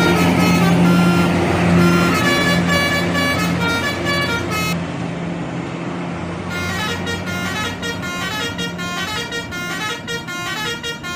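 Bus 'telolet' musical air horn playing a melody of quickly changing notes, over the steady hum of the bus engine. The horn stops for a moment about halfway, then plays another, faster run of short notes.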